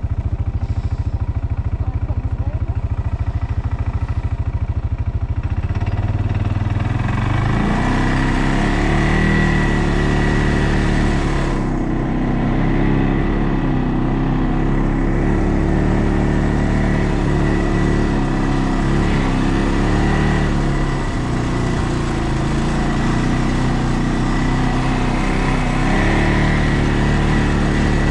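ATV engine idling steadily, then revving up about six seconds in and running under load, its pitch rising and falling.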